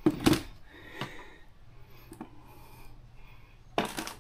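Handling noises as the 36-volt lithium battery and camera are moved into place for weighing: a scuffing rub at the start, a few light clicks, and another short scuff near the end, over a faint steady low hum.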